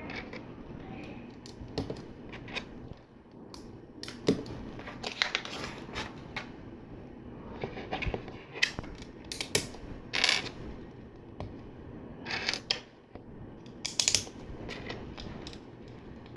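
Plastic LEGO pieces clicking and rattling as they are handled and pressed onto the studs of a model, in scattered separate clicks.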